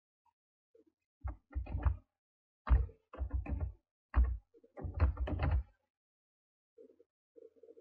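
Computer keyboard being typed on: several quick runs of sharp key knocks, each with a dull low thud.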